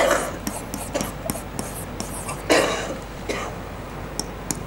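A plastic stylus tapping and scratching on an interactive whiteboard in short clicks while the man writing lets out two breathy vocal sounds, one at the start and a louder one about two and a half seconds in.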